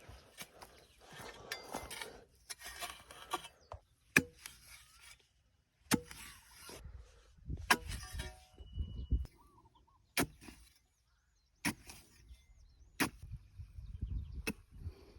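Digging: a tool striking hard ground every one to two seconds, with soil scraped and shovelled between some strikes. Faint bird chirps in the background.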